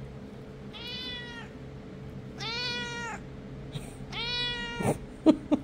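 Tabby cat meowing three times, each meow a drawn-out call that rises and falls in pitch, the sound of her demanding to be petted. Near the end come a few sharp, short knocks close to the microphone.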